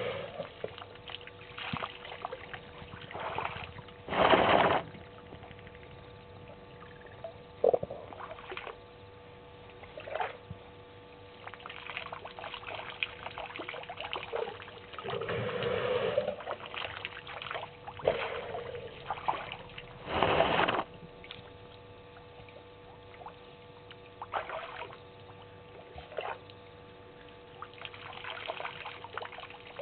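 African elephant drinking: water drawn up the trunk and squirted into its mouth, splashing and dribbling in irregular gushes. Two gushes stand out as loudest, one about four seconds in and one about twenty seconds in.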